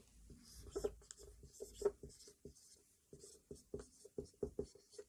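Marker pen writing on a whiteboard: a faint run of short, irregular strokes as the word is written.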